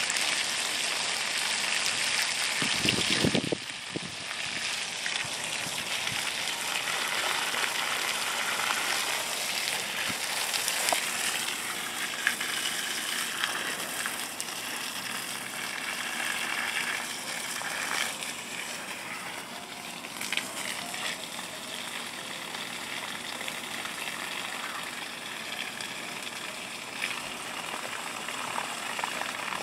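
Water running from a garden hose, a steady gushing hiss, with a brief low thump about three seconds in.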